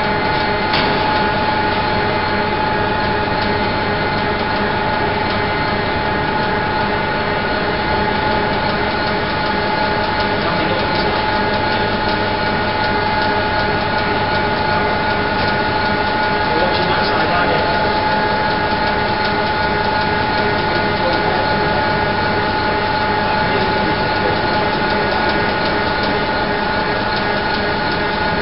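Steady machinery drone with a constant high whine, holding level without a break.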